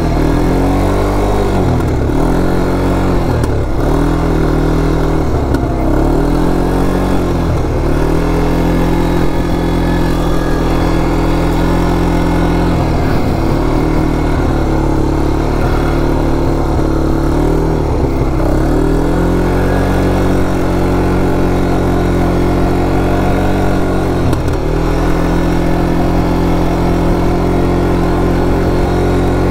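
A 200cc quad bike (ATV) engine running as the quad is ridden, its pitch dropping and climbing again and again as the throttle is eased and opened.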